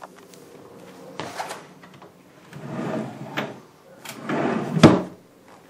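Wooden desk drawer sliding in and out three times, ending with a sharp knock as it shuts near the end.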